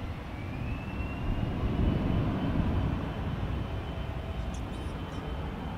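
Jet airliner engines running: a low rumble that swells about two seconds in and then eases, with a high engine whine that rises and then holds steady.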